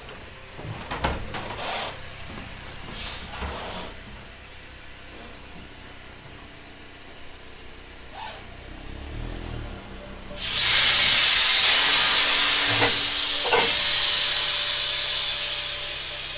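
A car on a chassis dyno runs quietly with a few knocks. About ten seconds in, a loud, steady hiss starts suddenly and then slowly fades.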